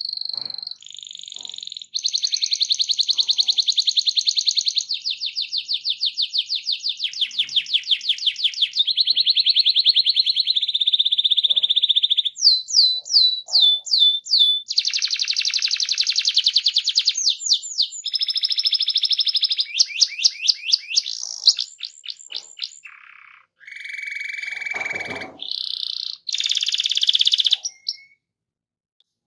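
Domestic canary singing a long, loud rolling song: fast trills and rapid runs of repeated notes that change pattern every few seconds. A run of quick downward-sweeping whistles comes around the middle.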